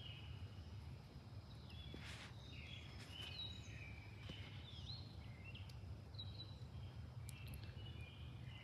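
Birds singing faintly in the early-morning dawn chorus: many short chirps and quick whistled notes from more than one bird, over a steady low background hum.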